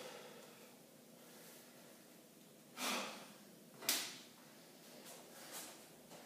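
A pair of dumbbells being taken off a metal rack. There is a short scrape a little under three seconds in, then a sharp knock about a second later, and two lighter knocks after that.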